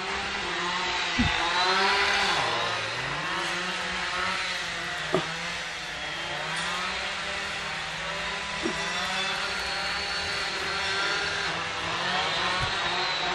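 Chainsaw engine running while trees are cut, its pitch rising and falling as it revs up and down, with a few sharp clicks over it.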